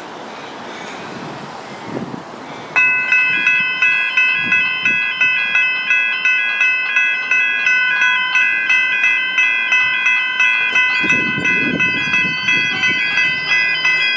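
A General Signals electronic level crossing bell starts ringing about three seconds in, with rapid electronic dings repeating about two and a half times a second. This is the crossing activating to warn of an approaching train.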